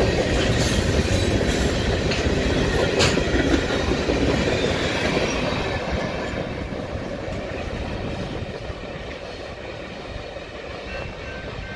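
Freight train cars rolling past, wheels clattering over the rails with a few sharp metallic clanks early on. The sound fades steadily as the end of the train passes and recedes.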